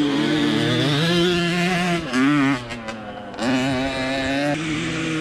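Small two-stroke scooter engine running, its note rising and falling with the throttle. It eases off for under a second about two and a half seconds in, then picks up again.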